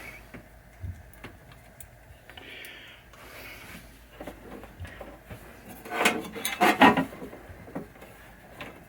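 Handling noises of hands working on parts: scattered light clicks and short scrapes, with a louder run of knocks and rattles about six seconds in.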